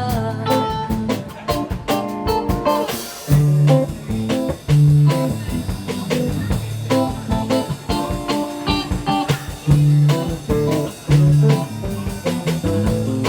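Band music without singing: guitar playing over bass guitar and drum kit, with a steady beat and repeated bass notes.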